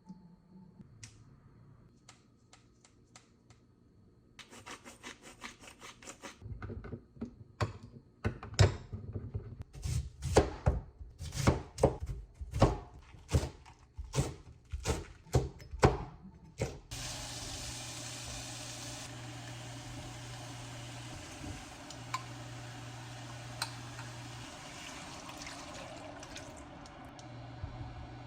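Kitchen work: a run of sharp knocks, several a second, like a knife chopping on a board, lasting about ten seconds, followed by a steady rushing noise with a low hum, like running water or a range-hood fan.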